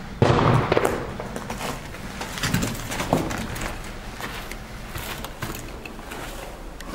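A loud thump or knock about a quarter second in, then footsteps and shuffling on a gritty, debris-covered concrete floor, with knocks from moving gear.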